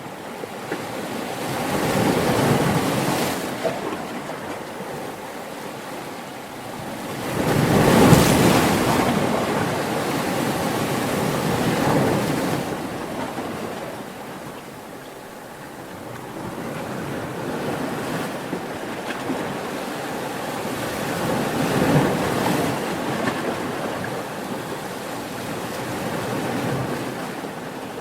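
Ocean waves washing in as surf, rising and falling in slow surges every few seconds, the loudest about eight seconds in.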